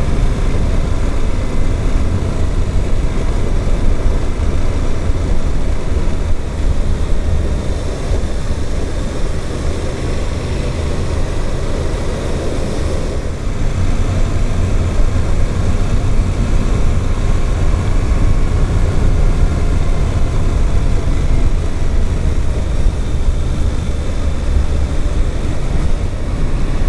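Suzuki GSX-8S parallel-twin engine running steadily while the motorcycle is ridden along the road, engine still being run in. Heavy wind rush on the microphone covers much of it.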